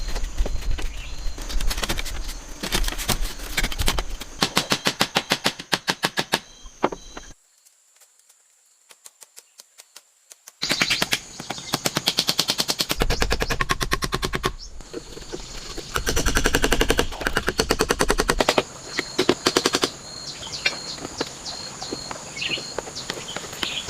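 Rapid runs of sharp knocks, several a second, over a steady high insect drone, broken by a few seconds of near quiet in the middle.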